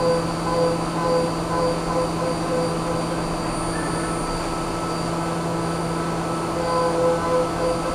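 Haas Minimill 2 CNC spindle driving an end mill through aluminum under flood coolant: a steady machining whine with several fixed tones over a coolant hiss. One tone pulses about twice a second at the start, holds steady in the middle and pulses again near the end as the adaptive-clearing toolpath moves in and out of the cut.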